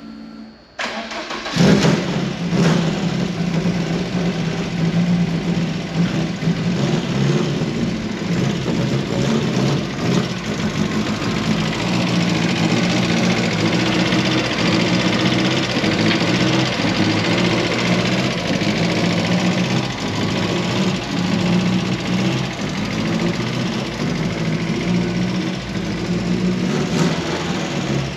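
Ford Zetec four-cylinder engine in a Mk1 Ford Fiesta starting about a second in, then running steadily as the car is driven slowly.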